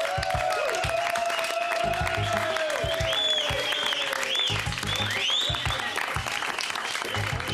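Studio audience applauding over music with a steady bass beat and gliding tones.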